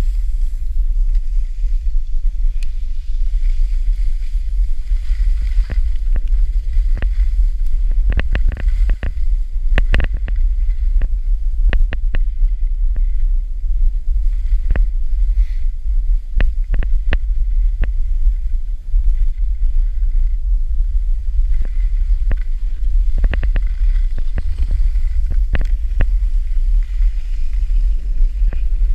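Wind buffeting an action camera's microphone during a downhill ski run, a loud steady low rumble, with the hiss of skis sliding on snow. Scattered sharp clicks come in clusters about eight to twelve seconds in and again a few seconds before the end.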